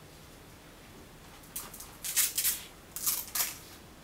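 A few short rustling, scraping handling noises, beginning about a second and a half in.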